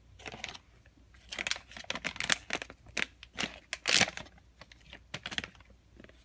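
A plastic squishy blind bag being torn open and handled, giving a run of irregular crinkles and crackles that is loudest about four seconds in.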